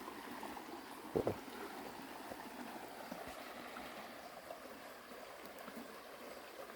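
Flash-flood runoff water flowing steadily in a stream-like rush after a heavy rain. A brief louder sound stands out about a second in.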